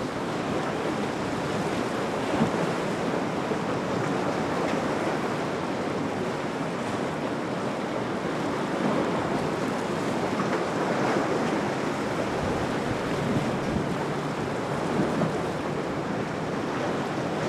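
Waves and surf rushing at an inlet, with wind buffeting the microphone; a steady noise with a few brief louder peaks.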